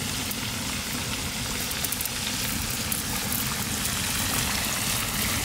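Turmeric-and-salt-coated wallago catfish steaks deep-frying in hot oil in an iron kadai, a steady sizzling crackle with a few sharper pops.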